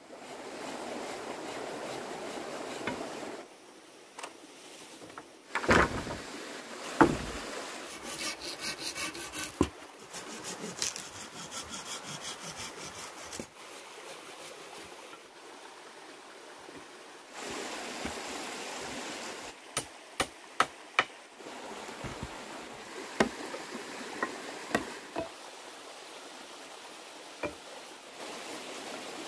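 Hand work on wood: sharp single knocks, a run of quick repeated strokes like sawing or rubbing, and stretches of steady rustling noise between them.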